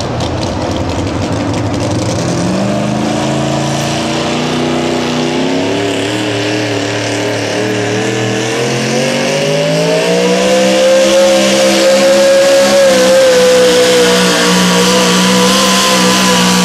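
Modified 4x4 pulling truck's engine under full load pulling a weighted sled: the revs climb steadily for several seconds, then hold high and steady as the truck runs down the track.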